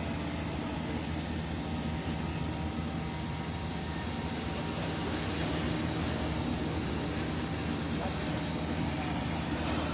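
Steady engine drone of a Ponsse forest harvester's diesel engine running, growing a little louder about halfway through.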